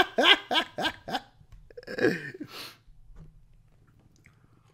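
A man laughing in a quick run of short bursts for about a second, then a breathy sound with a falling pitch about two seconds in, after which it goes quiet.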